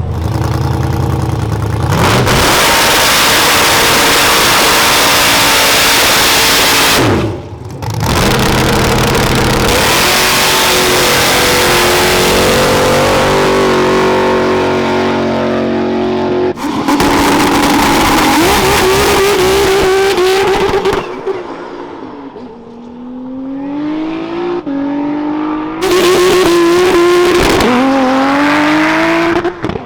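Loud V8 engine revving hard in several long pulls. It cuts off sharply between them, then climbs in pitch in steps over the last few seconds.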